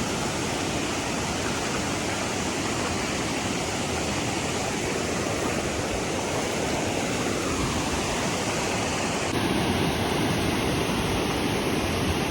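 Waterfall with a steady rush of falling water, a little louder from about nine seconds in.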